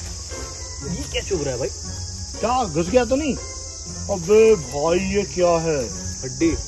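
A steady, high-pitched chorus of insects, crickets or cicadas, buzzing without a break. A person's voice comes over it in short phrases, louder than the insects.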